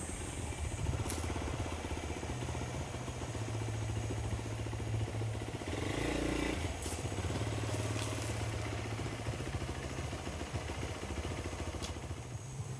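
Motorcycle engine running, most likely the rider's own Hero XPulse 200 4V single-cylinder, with a low hum whose pitch shifts up and down in steps, and a few light clicks and rattles.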